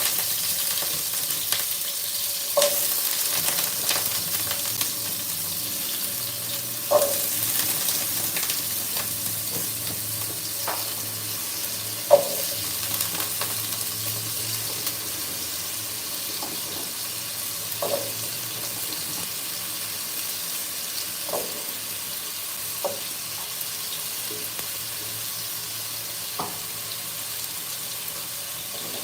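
Potatoes frying in hot oil in a pan: a steady sizzle, strongest at the start and easing off gradually. A utensil knocks against the pan now and then, about eight times.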